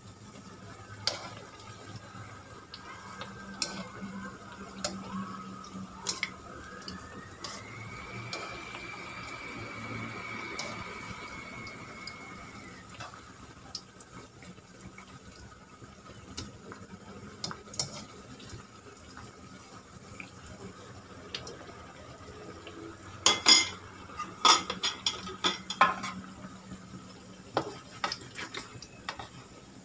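Patties shallow-frying in hot oil in a nonstick pan, a steady sizzle, with metal tongs clicking and scraping against the pan as they turn the patties. A quick run of loud clatter from the tongs on the pan comes about two thirds of the way in.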